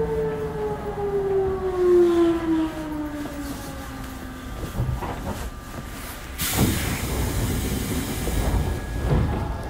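Odakyu 1000-series electric train heard from inside the car: the whine of its traction inverter and motors falls steadily in pitch and fades out as the train brakes to a stop. About six and a half seconds in comes a loud hiss of compressed air from the brake system that lasts about three seconds.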